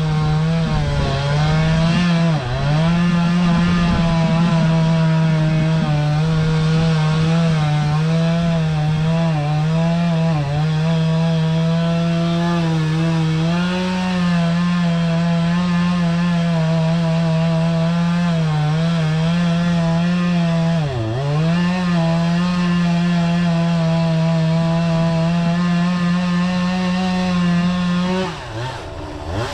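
Two-stroke chainsaw running at full throttle and cutting into pine, its high steady note dipping in pitch a few times as the chain bogs in the wood. Near the end the throttle is let off and the engine note falls away.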